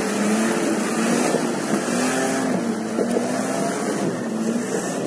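Engine of a short-wheelbase Mitsubishi Pajero revving hard under load as it climbs a muddy slope, its pitch rising and falling as the spinning wheels slip and bite in the mud.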